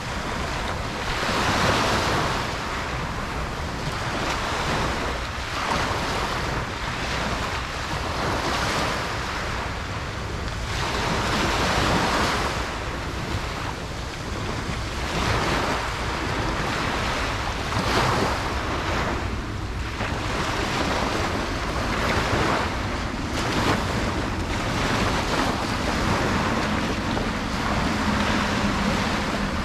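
Ocean waves breaking and washing up a beach, a continuous surf that swells every few seconds as each wave comes in, with wind buffeting the microphone.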